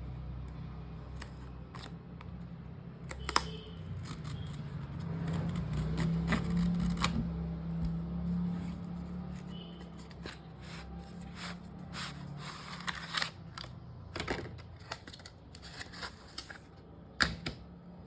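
Hands handling a boxed Kindle e-reader and its packaging: a series of sharp clicks, snaps and rustles, irregularly spaced, over a steady low hum that swells for a few seconds midway.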